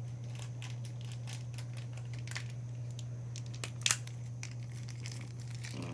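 Light handling noises: scattered small clicks and crinkles of small plastic toy figures and their packaging being moved about, with a sharper click about four seconds in, over a steady low hum.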